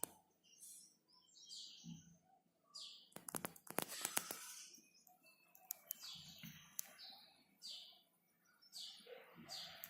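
A small bird chirping faintly and repeatedly, its short high chirps coming under a second apart through the second half. About three seconds in comes a burst of rapid clicking.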